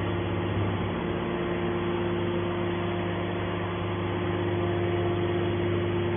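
Hydraulic steel scrap baler running with a steady mechanical hum at a constant pitch.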